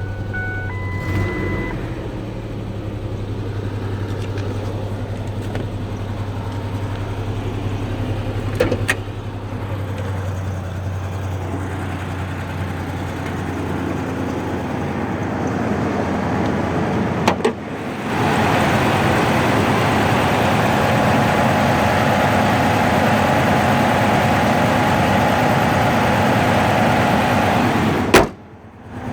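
Ford Ranger's 3.0-litre V6 engine running with a misfire. About eighteen seconds in it grows louder and fuller, and near the end a sharp knock is followed by a brief drop in level.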